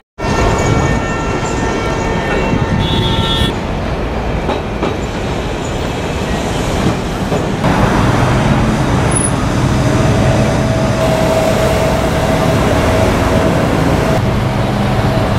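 Outdoor city ambience: a steady low rumble of traffic and rail vehicles, with a held whining tone in the second half. The sound changes abruptly twice.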